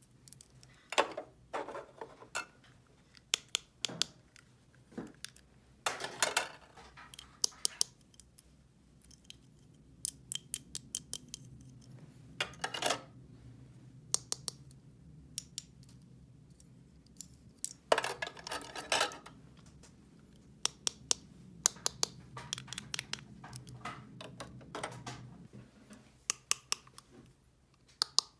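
Hands working small objects, likely a miniature craft or toy: irregular sharp clicks and snips, with a few short scraping rustles.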